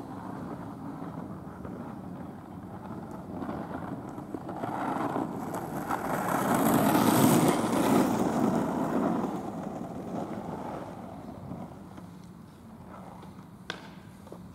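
Skateboard wheels rolling on asphalt as a skater passes close by, the rumble swelling and then fading away. A single sharp click near the end.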